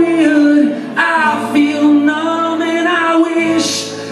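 A man singing a song in long held notes, accompanied by his own strummed acoustic guitar, performed live.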